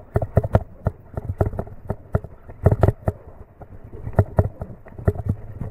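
Handling noise from cranking a spinning reel: irregular sharp clicks and knocks, several a second.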